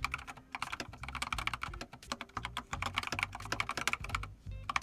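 Fast typing on a computer keyboard: a quick run of key clicks with a short pause near the end.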